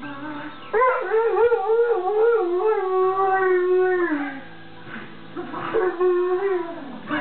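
Goldendoodle howling along to music. One long wavering howl of about three seconds slides down in pitch at its end, and a shorter falling howl follows near the end.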